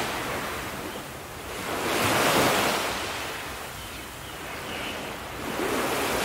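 Sea surf washing onto a beach, a steady hiss that swells and falls away in slow waves, one cresting about two seconds in and another rising near the end.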